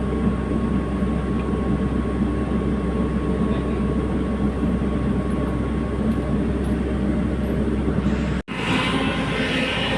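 Hydraulic excavator's diesel engine running steadily with a low hum. It cuts off abruptly about eight and a half seconds in and resumes with more hiss in the higher range.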